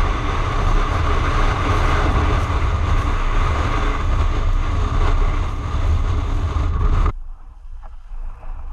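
Loud, steady wind rushing over an action camera's microphone, with a heavy low rumble, cutting off suddenly about seven seconds in.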